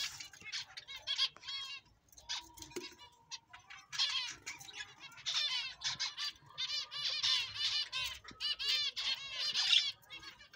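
A colony of zebra finches calling: many short, high chirps coming in quick runs, several birds at once.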